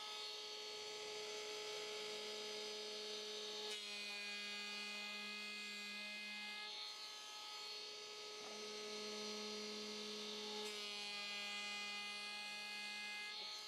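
Milwaukee M18 cordless 3-1/4-inch electric hand planer running with a steady whine while shaving the high spots off a warped pine board. The tone changes about four seconds in and again near eleven seconds.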